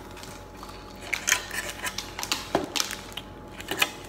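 Crinkling and tearing of plastic seasoning sachets and peeled-back instant noodle cup lids: irregular crackles and snaps starting about a second in.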